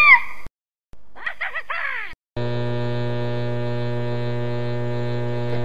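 A steady, buzzy hum starts about two and a half seconds in and holds unchanged. Just before it comes a short run of quick falling squeaky sweeps.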